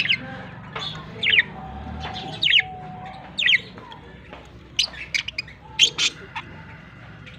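Pet budgies chirping and squawking: short, sharp calls about once a second, coming in a quicker cluster about five to six seconds in.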